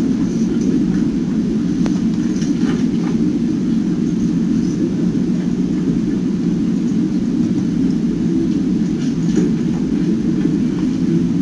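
Steady low rumbling background noise, with a few faint clicks about two to three seconds in and again near the end.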